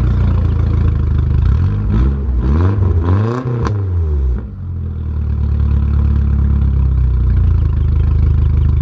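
Nissan 240SX (S13) four-cylinder engine idling through a straight-piped 3-inch exhaust with a test pipe, revved in a few quick blips about two seconds in, with one sharp crack at the top of the last rev, then settling back to a steady idle.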